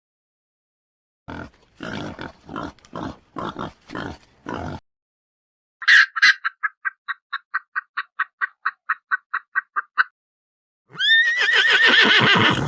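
Three separate animal calls one after another: a run of about nine short grunts, then a fast, even series of about twenty short pitched pulses, then a loud, high, wavering call near the end.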